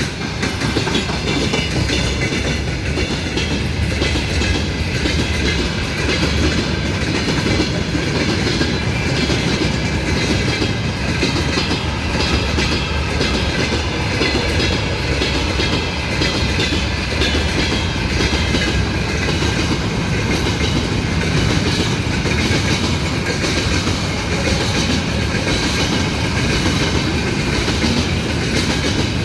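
A train rolling past close by, its wheels clattering steadily over the rail joints, with no letup.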